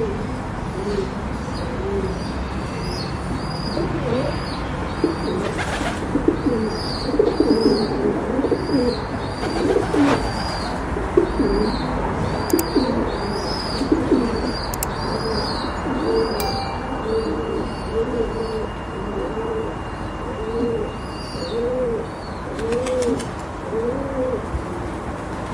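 Several pigeons cooing over one another in a continuous chorus of low, rounded, repeated coos. Higher, quick chirps from small birds repeat over the coos for much of the first half.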